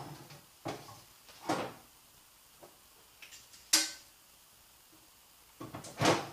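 Metal transmission parts and tools being handled on a workbench: a few scattered knocks and clatters, the sharpest and loudest a little past the middle, and a short cluster near the end.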